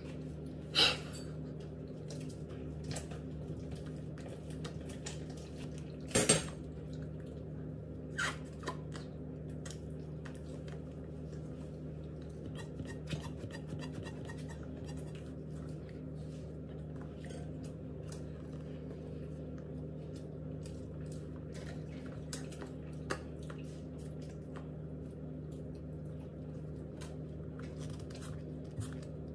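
Scattered clicks, taps and knocks from a clear plastic kitchen baster and its rubber bulb being handled, the loudest about one second in and about six seconds in, over a steady low hum.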